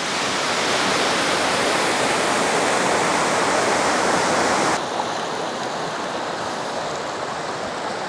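Waterfall in full flow, a steady loud rush of falling water. About five seconds in it cuts abruptly to the quieter, less hissy rush of a fast-flowing rocky stream.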